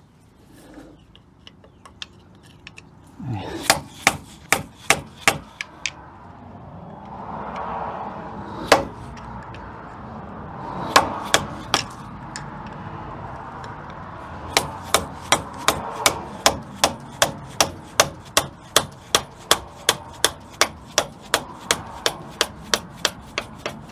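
Hammer striking a screwdriver to drive a brake caliper's split pin out. It starts with a quick cluster of strikes, then a few single blows, then a steady run of about three blows a second through the second half.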